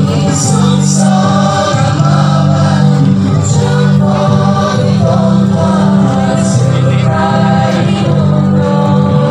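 Choir singing a Christian hymn in Bengali, played loud over a public-address loudspeaker.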